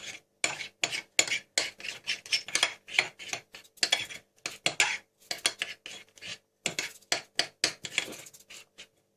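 Dessert spoon scraping and clicking against a plate as it stirs glue and gouache paint together, in quick irregular strokes, several a second.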